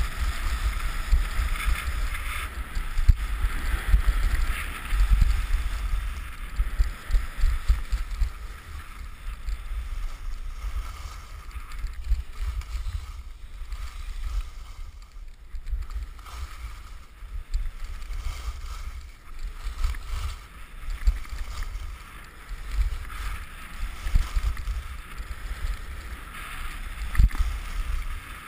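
Wind buffeting an action camera's microphone during a fast ski run, with a steady rushing hiss of skis running over packed snow. The sound eases briefly about halfway through.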